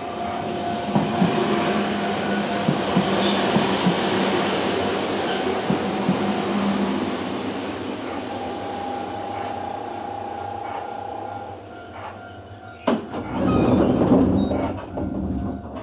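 Sangi Railway 101 series electric train running and braking to a stop, with steady tones from the running gear and high squeals from the wheels and brakes near the end. About thirteen seconds in there is a sharp clunk, then a loud rush as the pneumatic doors open.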